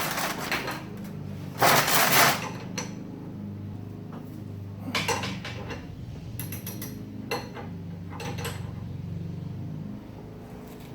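Metal tools clinking and clattering in a run of short, separate bursts, the loudest about two seconds in, over a steady low hum.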